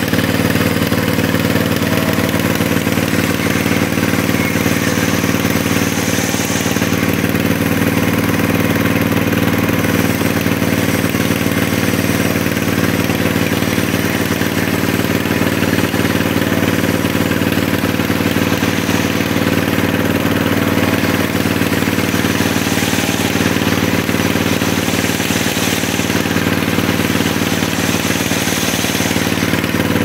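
Diesel engine running steadily, belt-driving a sawmill circular saw as the blade rips a long timber plank lengthwise.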